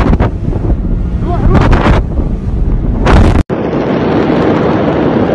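The Beirut port explosion through a phone microphone: a loud, overloaded rumble with several sharp cracks, mixed with wind buffeting the microphone. After an abrupt cut a little past three seconds, a steady rushing noise continues.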